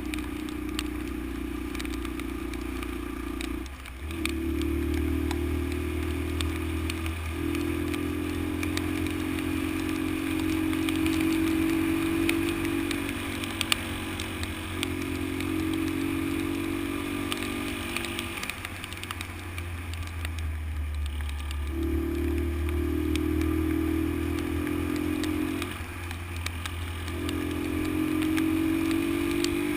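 Honda XL125's single-cylinder four-stroke engine running under way on a rough road; its note drops away and picks up again several times, as the throttle is eased and reopened.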